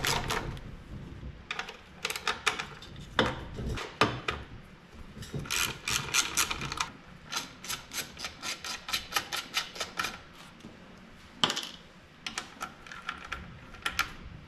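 A hand ratchet clicking in quick bursts with short pauses between them as it backs out the bolts holding the engine's sheet-metal cooling shroud.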